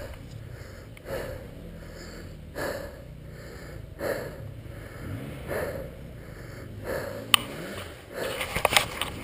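Heavy, rhythmic breathing of a winded dirt-bike rider, a breath about every second and a half, over a dirt bike's engine idling low and steady. A few sharp clicks near the end.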